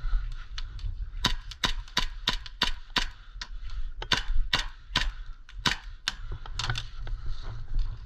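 Airsoft guns firing a string of single shots: sharp snapping cracks, about two or three a second at an uneven pace, over a steady low rumble.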